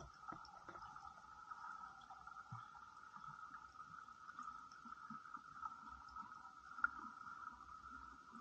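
Faint, muffled underwater ambience picked up by a submerged camera: a steady mid-pitched hum with scattered small clicks and soft thuds, and one sharper tick about seven seconds in.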